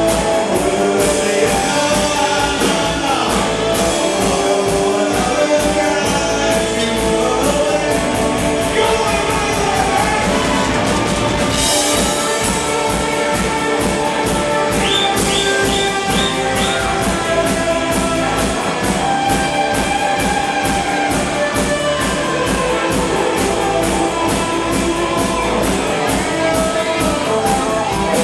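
Rock band playing live, heard from the crowd: electric guitars over a drum kit, with a lead vocal singing.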